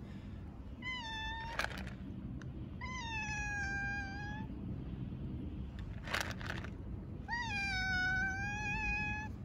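Hungry stray calico cat meowing loudly for food: three meows, a short one followed by two long drawn-out ones, each with a quick lift at the start. Short rustling noises come between the calls.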